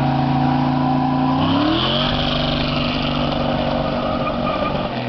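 A car engine running steadily, then its revs climb smoothly about a second and a half in and hold at the higher speed.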